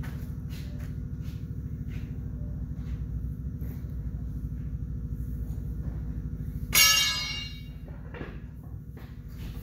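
A single loud metallic clang, ringing on for about half a second, about two-thirds of the way in, over a steady low pulsing machine hum.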